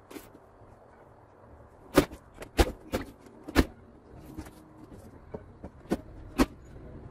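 Several sharp knocks and clunks, the first and loudest about two seconds in, as a window air conditioner's case is nudged and shifted into position in the window frame.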